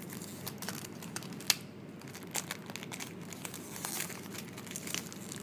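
Perfume box packaging being pulled off by hand, crinkling and rustling with scattered small clicks and one sharp click about a second and a half in.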